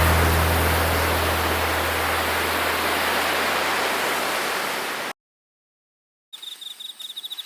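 A steady rushing hiss fades out under the last low notes of a music track and cuts to silence about five seconds in. Crickets start chirping in quick pulses near the end.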